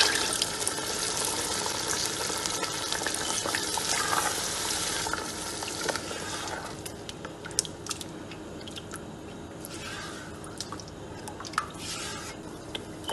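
Beef broth poured from a plastic jug into a pot of hot tomato stew, a steady splashing rush for about the first six seconds. Then the stew is stirred with a silicone spatula, a quieter slosh with scattered light knocks against the pot.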